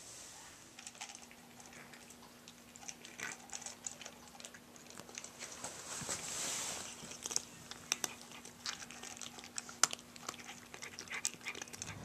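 Cats eating dry food from a bowl: faint, irregular crunching and clicking, with a faint steady hum underneath.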